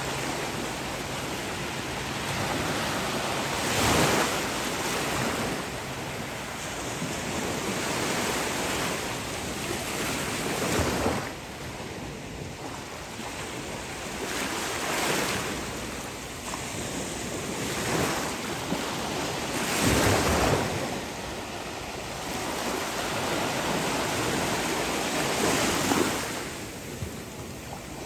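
Ocean surf washing onto a beach: a steady rush of water that swells as a wave breaks every few seconds.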